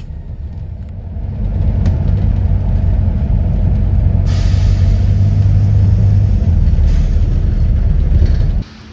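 Engine and road rumble heard from inside a double-decker bus, growing louder about a second and a half in. A long hiss joins in about four seconds in, and the sound cuts off suddenly near the end.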